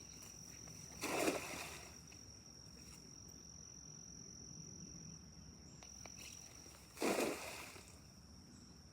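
Insects, likely crickets, buzz in one steady high-pitched note. Two short noisy bursts, about six seconds apart, are the loudest sounds.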